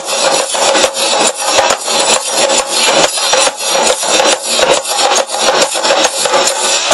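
Procession drum ensemble playing a loud, fast, continuous rhythm, many drums struck in rapid strokes with a bright, rasping edge.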